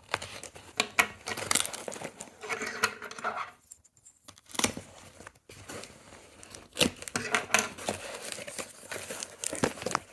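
A small knife cutting open a package, with tearing and crinkling of packaging and irregular sharp clicks and taps. There is a short pause about four seconds in.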